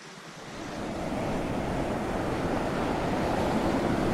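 Wind buffeting the onboard camera microphone of an ocean racing yacht under sail, with rushing sea. It grows louder about half a second in, then cuts off abruptly.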